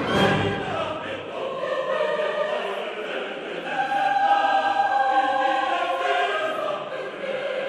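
Background music: a choir singing slow, held notes in a classical style.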